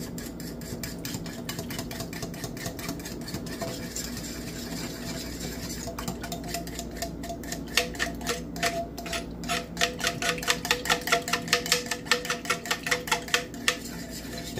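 A utensil stirring a thin sauce in a metal saucepan, clicking against the pot's side. The clicks come quickly, about four a second, and pick up from about halfway through, over a faint steady hum.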